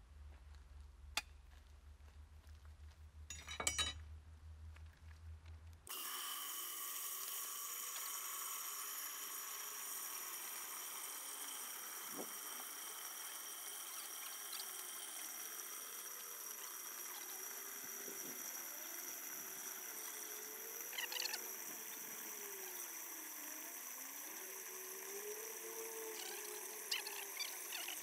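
Garden hose jetting water into a glass aquarium, a steady splashing pour that sets in abruptly about six seconds in. Before it, a few faint clinks.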